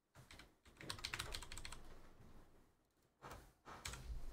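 Typing on a computer keyboard: two quick runs of keystrokes, the first about a second in and the second near the end.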